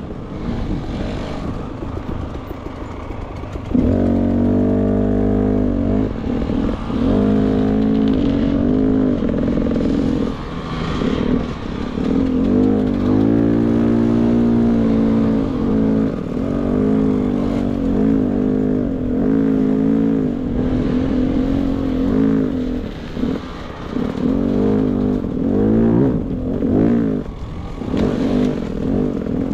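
Beta 300 RR two-stroke enduro motorcycle engine under way, the revs rising and falling every second or two as the throttle is worked. It runs softer and lower for the first four seconds, then louder.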